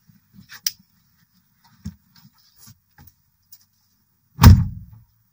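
A few faint clicks and rustles, then about four and a half seconds in a single heavy thump that fades quickly: a car door being shut.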